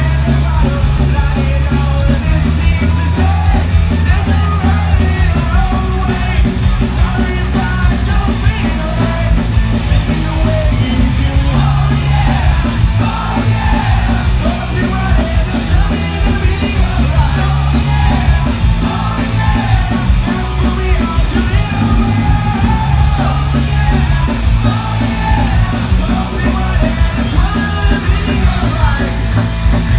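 Punk rock band playing live at full volume: distorted electric guitars, bass and drums under a shouted lead vocal, heard from within the crowd.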